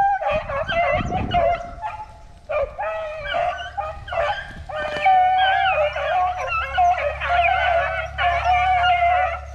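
A pack of rabbit-hunting dogs baying together on a rabbit's trail, several voices overlapping in a continuous chorus of long howling calls.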